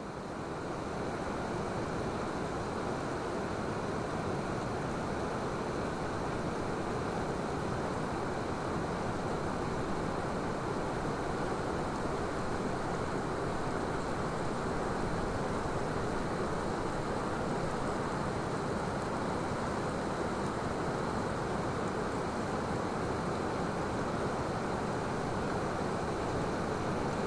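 Steady rushing ambience of wind and water with no distinct events, fading in at the start.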